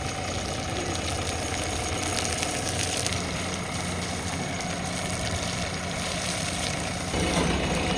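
JCB 3DX Plus backhoe loader's diesel engine idling steadily, getting a little louder about seven seconds in.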